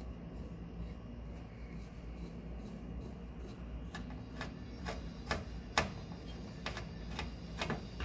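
Clicks and taps of a hose fitting being twisted on a water heater's brass drain valve, about two a second through the second half, over a steady low rumble.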